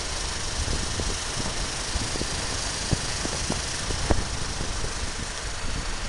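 Wind buffeting the camera's microphone: a steady rushing noise with irregular low bumps and rumble.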